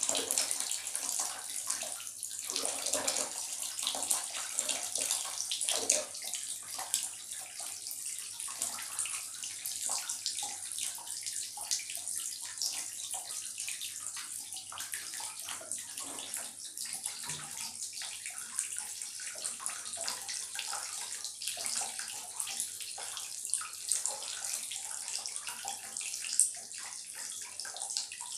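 Water running from a bath tap into a partly filled bathtub: a steady high hiss of pouring water, with small irregular splashes.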